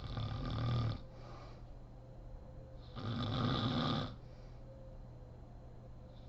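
A sleeping woman snoring: two loud snores, each about a second long and about three seconds apart, with a softer breath just after the first.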